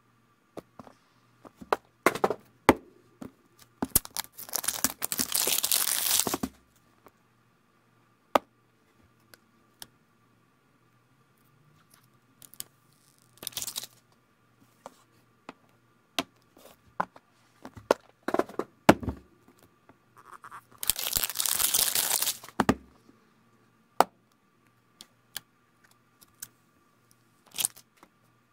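Plastic wrap and protective film being torn and peeled off new iPhones and their boxes, in two long tearing stretches about 4 s and 21 s in and a shorter one in between. Scattered clicks and taps of phones and box lids being handled and set down on a table.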